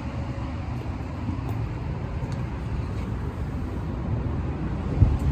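Steady low rumble of outdoor vehicle noise, with one dull thump about five seconds in.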